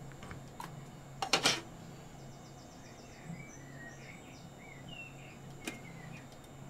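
Small sharp metal clicks of watchmaker's tweezers working the retaining screws of a watch movement in its steel case: a quick cluster about a second in and a single click near the end. Faint bird chirps sound in the background over a low steady hum.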